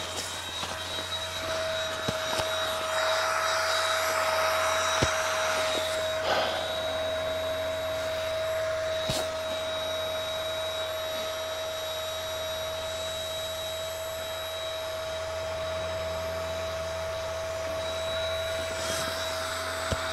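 The built-in battery-powered electric air pump of a Hazli Ventura inflatable foam sleeping pad runs with a steady whine, inflating the pad. The pad's fabric rustles as it is handled, most in the first few seconds.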